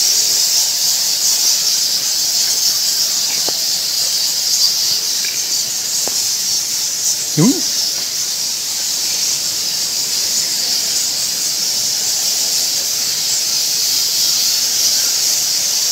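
A colony of cave-roosting bats squeaking without pause, a dense high-pitched chatter. About seven and a half seconds in, a short rising voice cuts in once.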